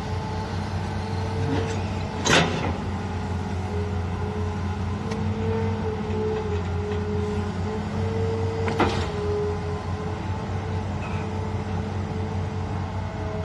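Hitachi crawler excavator's diesel engine running steadily under digging load, its hydraulics giving a wavering whine that comes and goes as the bucket works the hole. Two sharp knocks stand out, about two seconds in and again about nine seconds in.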